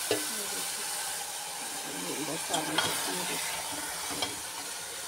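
Metal spoon stirring and scraping through a chicken and potato masala sizzling in an aluminium pot, with a few sharp clinks of spoon on pot over a steady frying hiss.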